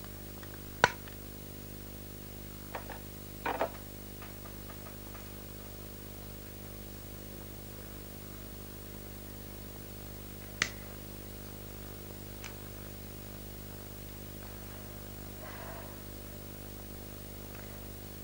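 A few sharp clicks and small handling noises: a hard click about a second in, a short cluster a few seconds later, another click about ten seconds in, and a faint rustle near the end. A steady electrical hum runs underneath.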